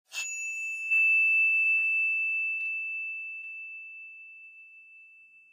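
A high bell-like chime sound effect: one clear ringing pitch, struck at the start and again more loudly about a second in, with a few fainter taps after, then slowly fading away.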